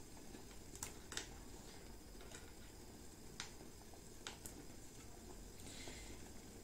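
Small knife scraping and picking at the inner skin of a raw sweet chestnut, giving faint scattered clicks and a short scratchy scrape near the end; the raw skin is hard to get off.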